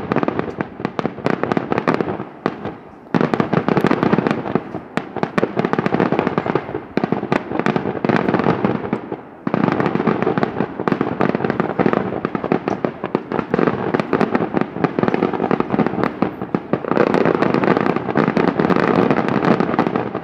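Daytime fireworks going off in a rapid, dense barrage of bangs and crackling reports. They fall off briefly about two seconds in, then come back suddenly and in force at about three seconds and again at about nine and a half seconds, and keep going to the end.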